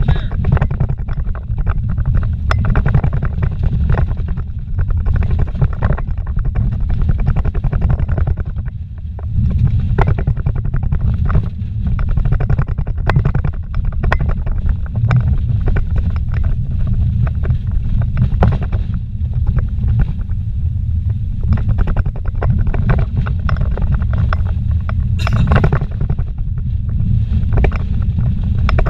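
Vehicle driving fast on a rough dirt road, heard from inside the cabin: a steady deep rumble of tyres and engine, with frequent knocks and rattles as it goes over bumps and stones.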